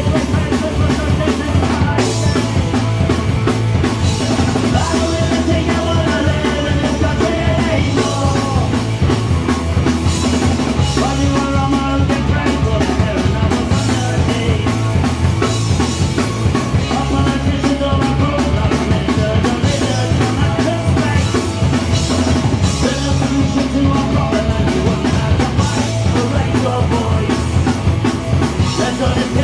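Punk rock band playing live: electric guitars, bass guitar and drum kit, loud and continuous.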